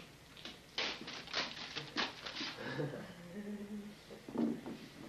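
Wrapping paper rustling and crinkling for about two seconds, then a person's voice murmuring briefly.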